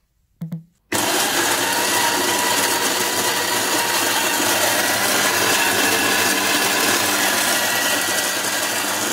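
Electric burr coffee grinder switching on about a second in and grinding whole coffee beans with a steady motor whir.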